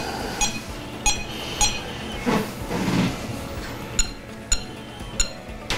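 Buttons being pressed on a Bully Dog GT handheld tuner to scroll its menu, each press giving a short, high-pitched click. There are three in the first couple of seconds, and four more about half a second apart near the end.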